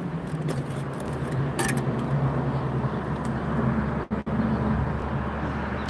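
A steady low engine hum with a few faint clicks; it cuts out briefly about four seconds in.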